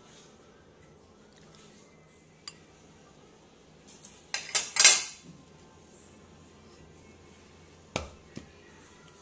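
Kitchen dishes and utensils clinking and clattering. There is a single click, then a short burst of clatter about halfway through, which is the loudest part, and two knocks near the end.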